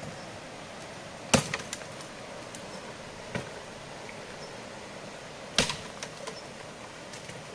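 Sharp chopping strikes, a blade hitting wood: two loud blows about four seconds apart with a weaker one between, each followed by a few light clicks.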